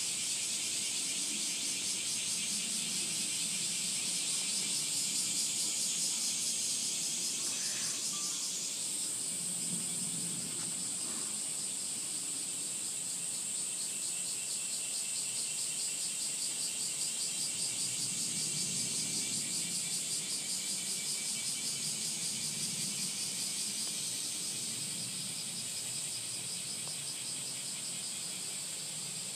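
A steady chorus of insects chirping in a fast, even, high-pitched trill.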